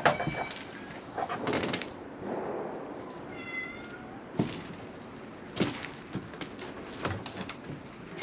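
A cat meowing, one short call about three and a half seconds in and a fainter one near the start, among sharp knocks and clatters, the loudest right at the start.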